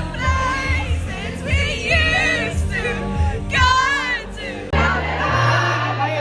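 Live pop music: a lead vocalist sings over a steady kick-drum beat. About three-quarters of the way through it cuts abruptly to a held low bass note under a denser wash of sound.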